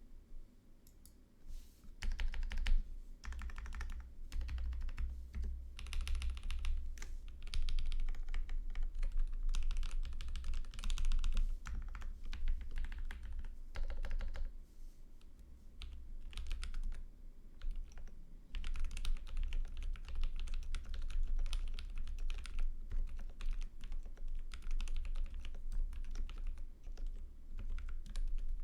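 Typing on a custom mechanical keyboard with lubed NovelKeys Cream linear switches on 65 g TX springs, mounted in a brass plate and aluminium case under PBT keycaps. Fast, continuous keystrokes in long runs with brief pauses, starting about two seconds in.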